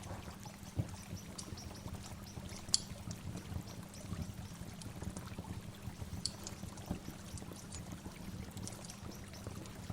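Waterfall rushing steadily, with a few short, high bird chirps, the clearest about three and six seconds in.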